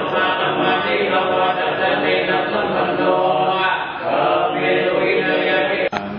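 Group of voices chanting Buddhist Pali verses in unison, with long held syllables. The chanting cuts off abruptly just before the end.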